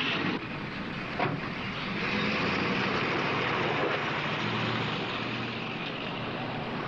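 Car engine running as a convertible pulls away, a little louder for a couple of seconds in the middle, with a short sharp knock about a second in.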